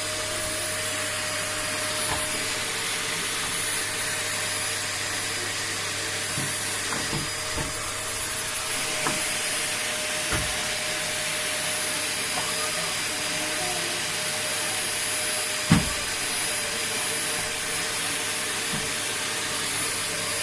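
Vacuum cleaner running steadily with a constant motor whine and airflow hiss. A few light knocks occur, with one sharper knock about sixteen seconds in.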